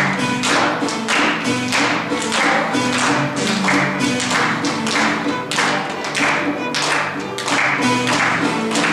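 Dagara gyil, a wooden xylophone, played in quick repeating patterns of struck notes, with heavier strokes about twice a second.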